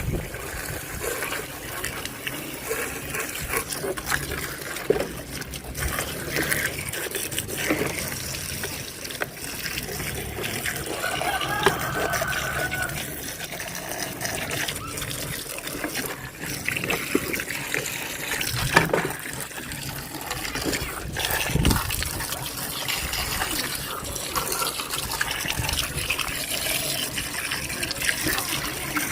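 Running water pouring and splashing steadily while muddy plastic toys are washed, with a few sharp knocks of the toys being handled.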